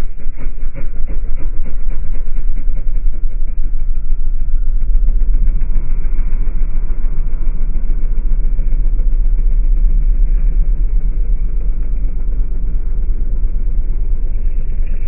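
Ford SN95 Mustang V6 engine running with a rod knock, its audio slowed down, so the low engine sound carries a rapid, regular knocking. The knocks are most distinct in the first few seconds.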